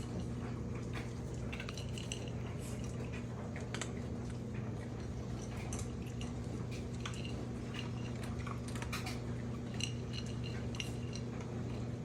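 Light, scattered metallic clinks and ticks over a steady low hum.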